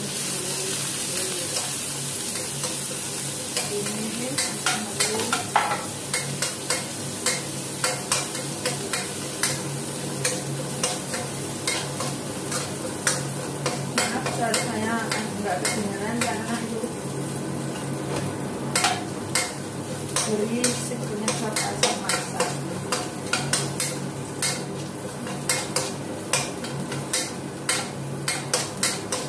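Metal spatula scraping and knocking against a wok during stir-frying, over a steady sizzle of frying food. The knocks come irregularly, often several a second, and are thicker in the second half.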